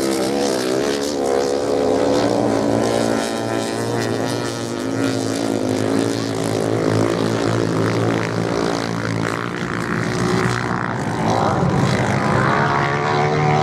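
Several racing motorcycle engines running together on a sand track, their pitch rising and falling as the bikes open and close the throttle.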